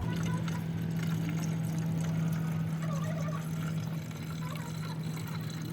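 Washer fluid pouring steadily from a jug into a car's windshield washer reservoir, with a steady low hum underneath.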